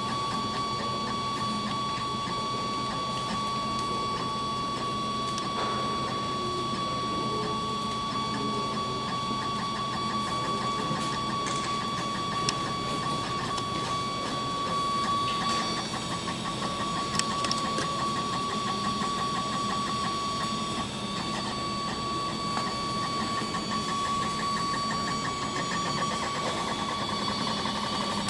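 Hanbot CAPBOT150S mini 3D printer running a print, its stepper motors giving a steady high whine with a shifting mechanical buzz as the print head moves. The sound changes character a little past the middle.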